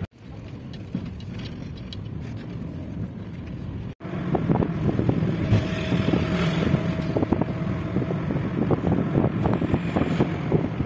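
Inside a moving car: steady engine and tyre noise with wind buffeting the microphone. It breaks off for an instant about four seconds in and comes back louder, with many small knocks and rattles.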